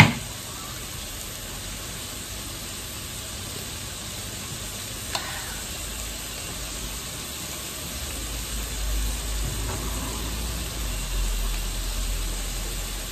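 Beef rolls wrapped around enoki mushrooms sizzling steadily on a tabletop electric grill plate. A metal spoon clinks sharply on the plate at the start, and there is a lighter click about five seconds in.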